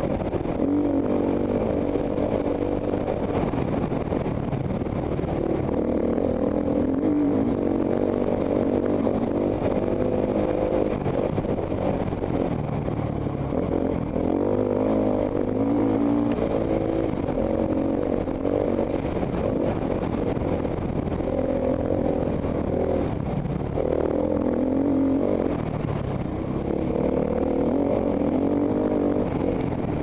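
Dirt bike engine heard from a helmet-mounted camera while riding, its pitch climbing and dropping again many times as the throttle is worked on and off.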